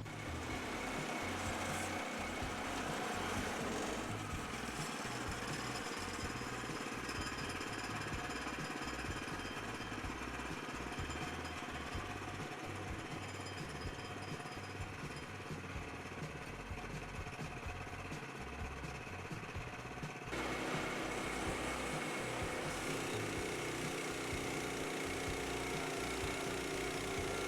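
Woodland Mills HM122 portable band sawmill running, its engine making a steady rumble, with the sound shifting about four seconds in and again about twenty seconds in.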